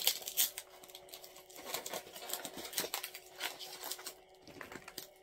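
Cardboard packaging of a postal parcel being handled and pulled at: irregular crackles, rustles and scrapes, loudest at the very start.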